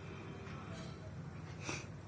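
One short, sharp sniff about three-quarters of the way through, from a nose being tickled with paper to bring on a sneeze, over a steady low hum.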